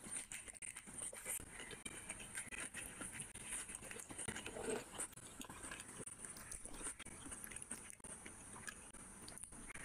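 Close-up eating sounds of a person eating rice and curry by hand: chewing, lip smacks and small wet clicks, irregular throughout, with fingers squishing through the rice.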